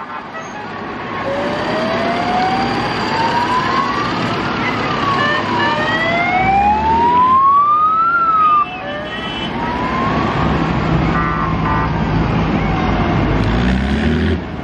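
A wailing siren sweeping slowly up and down in pitch, a few seconds per sweep, over the low rumble of tractor engines driving past. The siren breaks off abruptly about two-thirds of the way through, and the engine rumble carries on.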